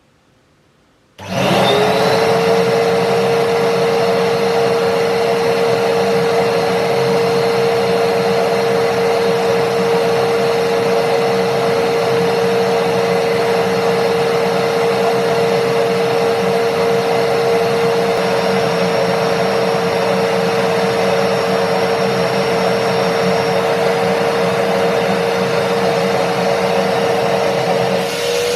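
Kärcher WD2 wet and dry vacuum cleaner's 1000 W motor switched on about a second in. It spins up with a quick rising whine, then runs steadily with a constant hum. Near the end the level dips briefly and the pitch steps slightly higher.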